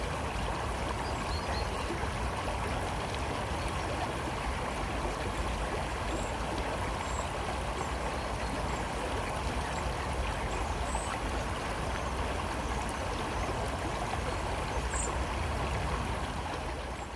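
River water flowing steadily, with a few faint, brief high bird chirps scattered over it.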